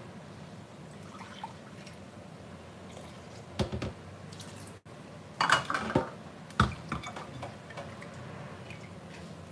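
Rice being rinsed in a rice cooker's inner pot at a stainless-steel sink: water splashing and dripping, with several sharp knocks of the pot against the sink in the middle, the loudest sounds.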